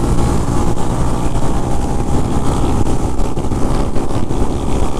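Motorcycle engine running steadily under way, with wind noise on the microphone.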